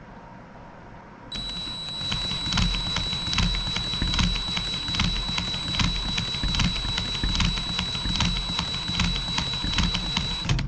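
Cordless drill cranking a 12 cc inline four-cylinder model engine (a Holt 75 replica) with the ignition still off. The drill motor gives a steady high whine over rapid mechanical clicking and low pulses as the engine turns over against its compression. It starts about a second in and stops suddenly just before the end.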